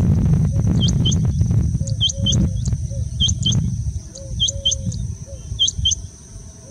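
Male rain quail giving its mating call: sharp double notes, each falling in pitch, repeated about every second, five pairs in all. A loud low rumble runs underneath, and a steady high-pitched tone sits in the background.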